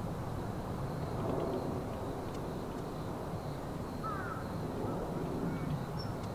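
Distant, steady jet rumble from a climbing Boeing 787 airliner, heard outdoors from a hillside, with a few short bird calls about four seconds in.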